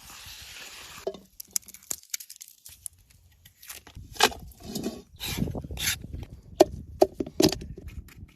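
Irregular knocks, taps and clatters of things being handled during outdoor food preparation, with a short steady hiss in the first second.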